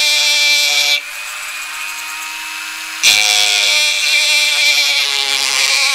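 Handheld rotary tool spinning a cone-shaped grinding stone, grinding hardened filler on a plastic airsoft pistol slide. The grinding is loud for about a second, drops to the quieter steady whine of the tool running as the bit eases off, and comes back loud about three seconds in.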